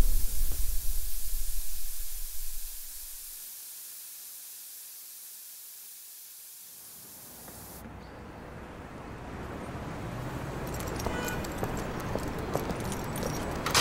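A low rumble and hiss fade away over the first few seconds. About seven seconds in, street ambience fades up, with light clicking footsteps on the pavement near the end.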